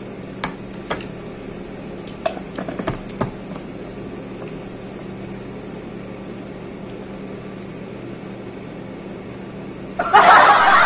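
Light clicks and knocks of a glass jar being set down and metal chopsticks handled on a glass tabletop, a few early on and a small cluster about two to three seconds in, over a steady low room hum. Near the end a loud voice suddenly comes in.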